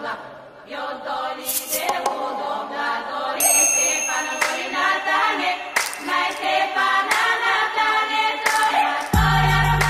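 Background music with choir-like sung voices holding long chords; a deep bass comes in near the end.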